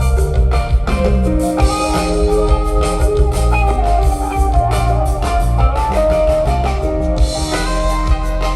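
Live rock band playing an instrumental jam: guitar over bass and a drum kit, with held melodic notes and a steady beat.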